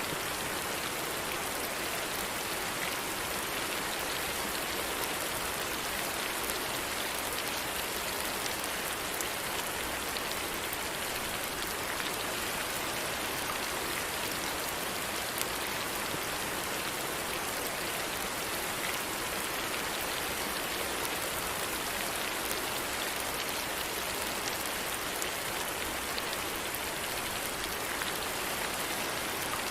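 Steady rain falling, a dense even hiss with scattered small drop ticks on a surface.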